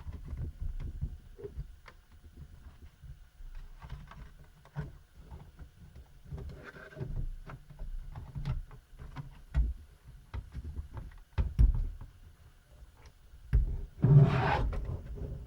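Plastic laptop case being pried apart with a blunt tool: scattered clicks and snaps as the latches release, among low handling knocks. There is a louder burst of noise near the end.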